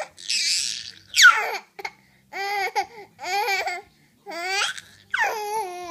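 Baby laughing and squealing in a string of high-pitched vocal bursts, with a loud falling squeal about a second in, followed by four shorter rising-and-falling calls.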